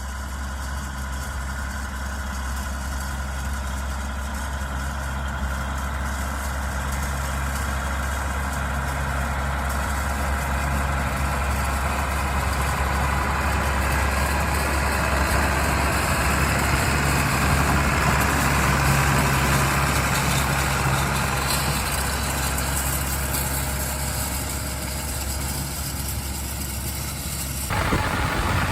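Allis-Chalmers 7020 tractor's six-cylinder diesel engine running steadily under field work. It grows louder towards the middle and then fades, and the sound changes suddenly about a second before the end.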